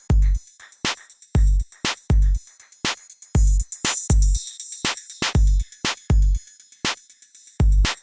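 Electronic background music with a drum-machine beat: deep kick-drum thumps and sharp hi-hat clicks in a steady rhythm.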